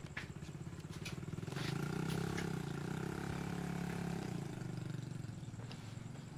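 Motor engine running with a fast, even pulse. It grows louder about a second and a half in, then slowly fades.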